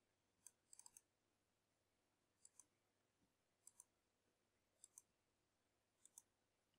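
Near silence broken by a handful of faint computer mouse clicks, some in quick pairs.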